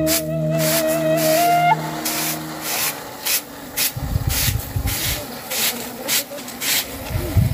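Unhusked rice grain swishing in woven bamboo trays and sieves shaken by hand to winnow and sift the harvest, a rhythmic rustle about twice a second. A flute melody plays over the first two seconds.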